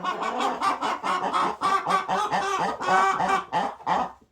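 Partridge Brahma hens singing their egg song, a run of repeated, overlapping clucking cackles, the call hens make around laying an egg.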